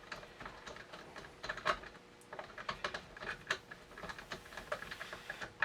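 Light, irregular clicks and taps of a screwdriver and small metal gun parts being handled while screws are turned in during reassembly of a shotgun.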